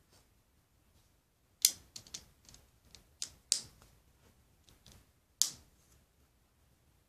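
Sharp plastic clicks and knocks of LEGO bricks as a large brick-built model is handled. A quick run of clicks starts about a second and a half in, and a last loud click comes about five seconds in.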